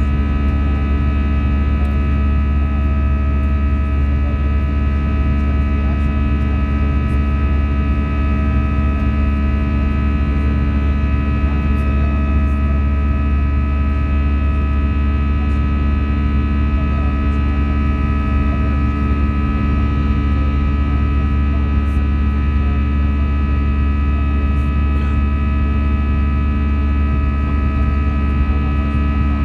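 Airbus A321 cabin noise during the climb after takeoff: a steady, loud drone of the jet engines and airflow, with several steady whining tones over a deep rumble.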